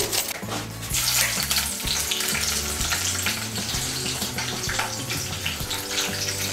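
Nigella seeds and green chillies sizzling in hot mustard oil in a kadai as the tempering fries. The sizzle grows stronger about a second in.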